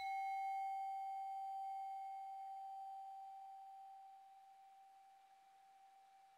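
Singing bowl ringing on after being played: one steady pitched hum that slowly fades away. A faint higher overtone dies out after about two and a half seconds.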